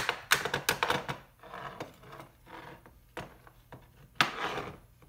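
Hammer tapping the aluminum drive-end housing of a Mitsuba starter motor to knock it off the magnet housing, a quick run of sharp taps in the first second. Quieter scraping of metal parts follows as the housing comes apart, then a louder clatter a little after four seconds.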